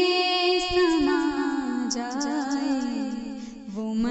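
Background vocal music: a solo voice singing slow, drawn-out notes of an Urdu devotional song (naat), the pitch gliding between held tones with no beat. The voice fades briefly about three and a half seconds in, then picks up again.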